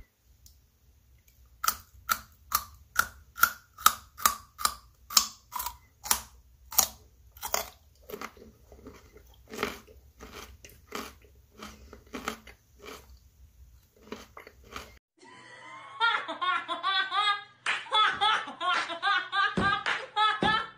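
A run of sharp tongue clicks, 'clops' with a hollow ring, about two or three a second, that grows fainter and more irregular after the first few seconds. Near the end a busy, high, warbling voice track takes over.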